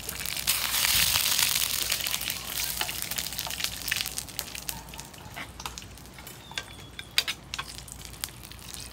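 Food frying in hot pork lard in a pan: a loud sizzle for the first few seconds that then dies down to a quieter crackle with scattered sharp pops.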